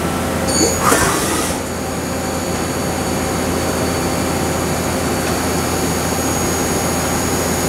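Mazak Integrex dual-spindle CNC mill-turn machine running, with a steady high whine over the machine's constant hum. A brief rushing burst comes about a second in.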